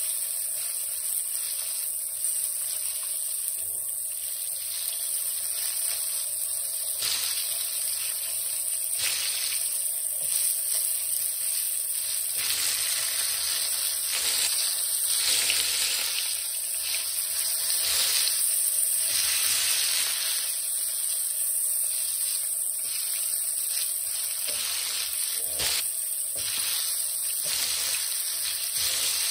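Flour-dredged Black Sea gobies sizzling as they fry in hot oil in a frying pan, a steady hiss that swells at times. Forks turning the fish give a few light clicks against the pan.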